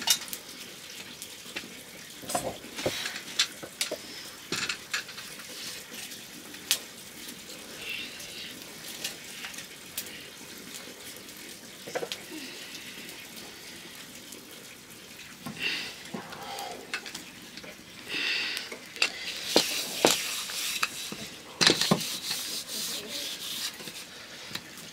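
Food being stirred in a pot or pan: irregular clinks and scrapes of a utensil against the metal, over a low sizzling hiss, with a busier patch of scraping and knocks near the end.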